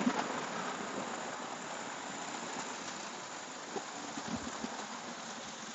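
Steady outdoor hiss, with a few soft knocks and rustles from walking through tall grass.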